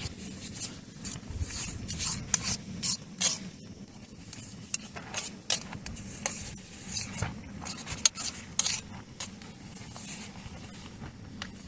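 Irregular rustling and scraping strokes, like a spoon stirring and scooping camp breakfast in its container, with many quick, sharp scrapes.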